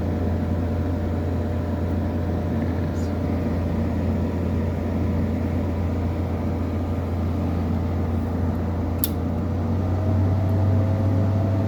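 Air conditioner running: a steady low electrical hum with a few steady higher tones from the compressor and fan motor. The hum gets slightly louder near the end, and there are two faint clicks.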